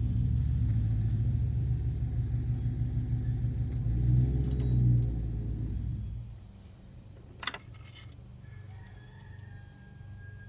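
A vehicle engine running steadily, swelling briefly about four seconds in, then fading away about two seconds later. A single sharp metallic click follows.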